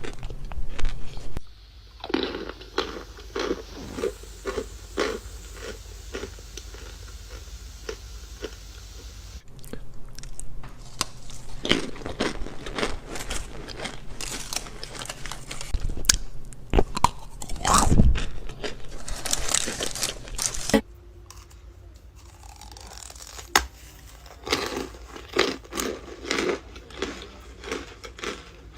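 Blocks of compressed cornstarch being bitten and chewed: a string of crisp, crackling crunches. The loudest bites come in the middle, and quieter chewing crunches follow near the end.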